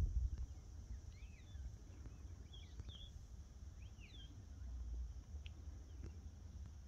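A few short bird chirps with quick rising and falling notes: a cluster about a second in, another around three seconds and a couple near four seconds. A low, steady rumble runs beneath them.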